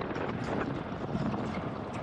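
GasGas ES700 enduro motorcycle's single-cylinder four-stroke engine running while riding, under a steady rush of wind on the microphone, with scattered knocks.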